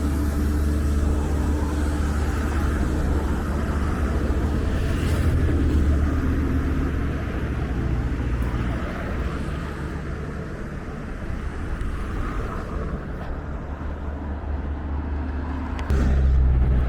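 Road traffic noise: vehicles passing with a steady low rumble that swells about five seconds in, eases off, then jumps louder suddenly near the end.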